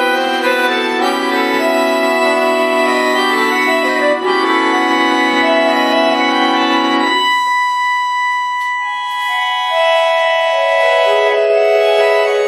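Bayan (Russian button accordion) playing a melody of sustained notes over held low chords; the low chord drops out about seven seconds in, leaving the upper line alone.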